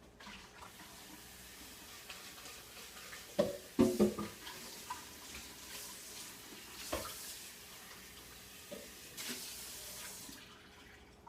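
Tap water running as a blender jar is rinsed out in the sink, with a few knocks and clunks of the jar partway through. The water shuts off near the end.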